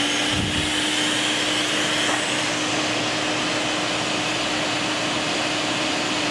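Shop vac running steadily, blowing forced air into a wood-burning forge fire: an even rushing of air over a constant motor tone.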